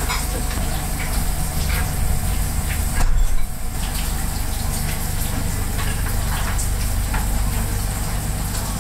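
Restaurant kitchen noise: a steady low hum and running water, with scattered light clinks and knocks and one louder clatter about three seconds in.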